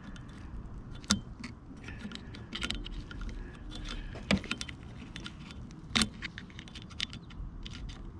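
Small metallic clicks and scrapes of a steel hook pick working the brush springs back into the brush holders of a Minn Kota trolling motor's lower unit, with a few louder clicks about a second, four seconds and six seconds in.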